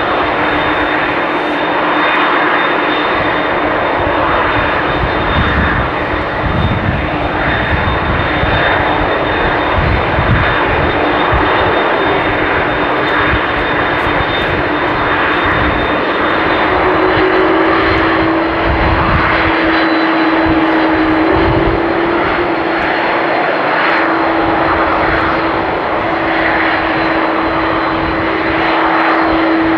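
McDonnell Douglas MD-11F freighter's jet engines running, a loud steady roar with a steady whine, the whine stepping up slightly in pitch about halfway through.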